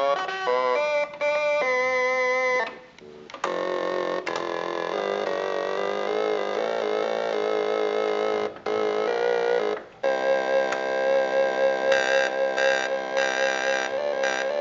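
Russian electronic keyboard playing through its built-in speaker: a few short single notes, then dense chords held steadily with the flat of the hand, broken by brief gaps. Near the end the upper notes pulse on and off over the held chord.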